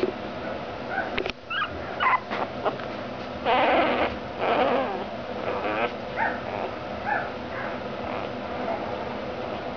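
Newborn boxer puppy crying in short, high squeaks and whimpers. It gives two longer, louder cries from about three and a half to five seconds in.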